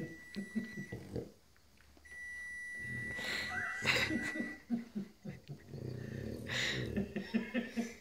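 Boston terrier making short, quick, rhythmic grunting noises while wriggling in his coat. A steady high-pitched electronic tone sounds twice in the first half.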